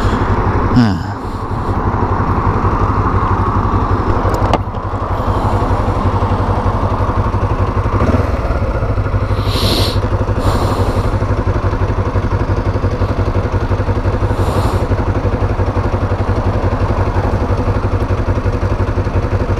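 Kawasaki Ninja 500's parallel-twin engine, its revs falling about a second in as the bike comes to a stop, then idling steadily while stopped at a red light.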